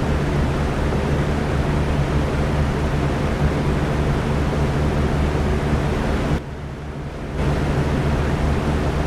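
Electric fan running, a steady airy whoosh over a low hum. About six and a half seconds in, it drops noticeably quieter for about a second, then comes back at full level.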